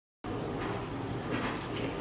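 Steady low background noise with a few faint soft knocks of handling; the food processor is not running.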